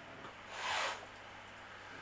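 Young ginger cat hissing once, a short breathy hiss of about half a second: a defensive warning aimed at another cat.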